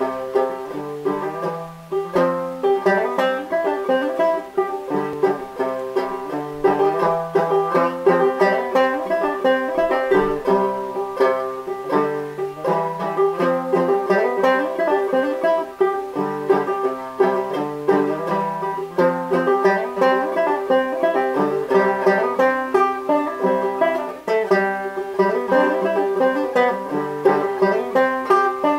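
Banjo played clawhammer style: a simple tune in the key of D, picked in a steady, even rhythm.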